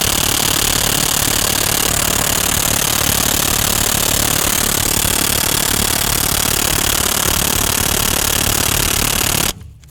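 DeWalt DCF899 brushless cordless impact wrench hammering continuously on a rusted axle nut, then cutting off abruptly near the end. The nut does not break loose.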